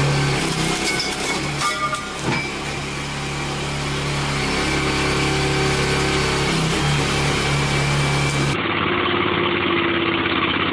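Small gasoline engine of a 30-ton hydraulic log splitter running steadily while the pump drives the wedge through a log, with a few sharp cracks or knocks about one to two seconds in. Near the end the sound cuts abruptly to another log splitter's engine running.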